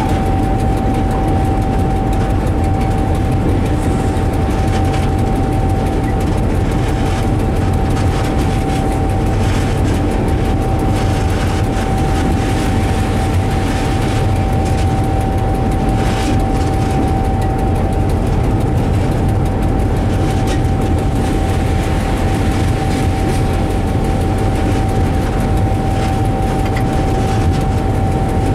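Diesel locomotive's engine running steadily under way, heard from the cab, a low rumble with a steady high whine above it.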